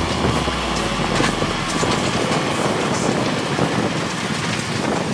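Crusher running with a dense, constant clatter of material being broken up, and a low hum in the first two seconds.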